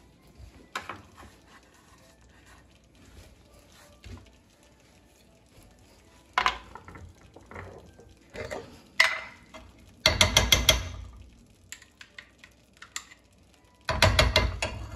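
A metal spoon knocking and scraping against a nonstick frying pan as tomato sauce is stirred and a spoonful of tomato paste is added. Scattered light clicks and two single knocks build to two dense bursts of rapid clatter, about ten seconds in and again near the end.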